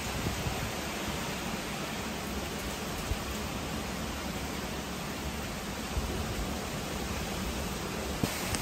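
Steady, even hiss of heavy hurricane rain falling, with no breaks or separate impacts.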